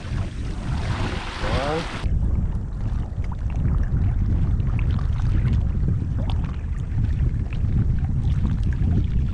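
Wind buffeting the microphone: a steady low rumble that takes over about two seconds in, after a short stretch of shore noise with a brief voice.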